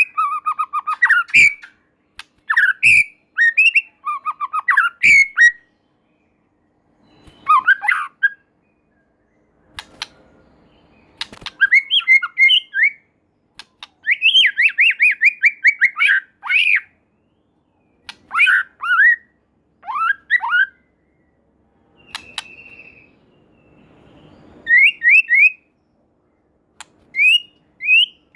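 White-rumped shama singing in full voice: loud bursts of rapid, falling whistled notes, phrase after phrase with short pauses between, and a few sharp clicks in the first few seconds.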